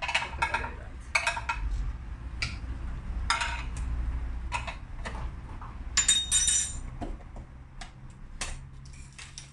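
A metal spoon and containers clinking and knocking against a cooking pot and the kitchen counter as cocoa is spooned in: a string of short, irregular knocks, with one brighter ringing clink about six seconds in.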